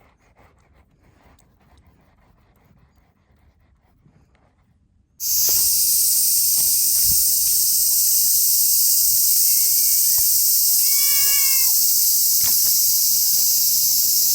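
Faint taps and rustles, then about five seconds in a loud, steady, high-pitched hiss starts abruptly and runs on. Over the hiss a cat gives a few short meows, one around the middle and one near the end.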